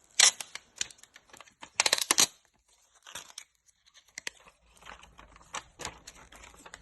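Plastic packaging crinkling and tearing in irregular short bursts as a new phone battery is unwrapped from its plastic protection.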